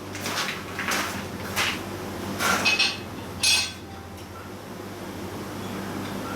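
Knocks and clatter of metal parts being picked up and set down, about five in the first four seconds, over a steady low hum that runs on alone afterwards.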